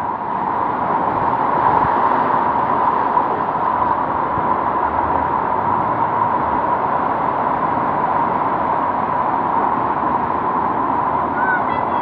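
Steady rushing noise of floodwater running down a street, with vehicles driving through the water.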